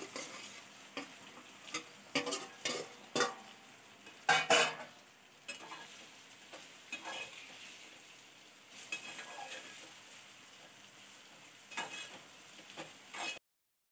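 Chopped okra being stirred into frying onion-tomato masala in a metal pot: a faint steady sizzle under scattered scrapes and knocks of the spoon against the pot, loudest about four seconds in. The sound cuts off suddenly near the end.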